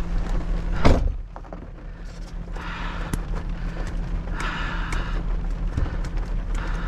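A vehicle door slams shut about a second in. A vehicle then runs with a steady low hum, with a swishing noise about every two seconds.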